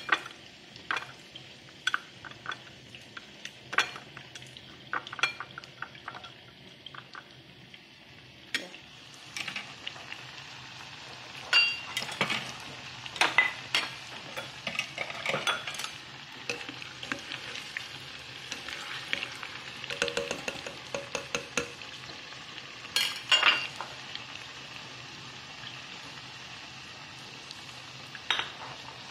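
Chopsticks clicking against a bowl while minced chicken is mixed with seasonings, about one click a second. From about a third of the way in, eggplant pieces deep-frying in a small pot of oil give a steady sizzle, with clusters of utensil clicks.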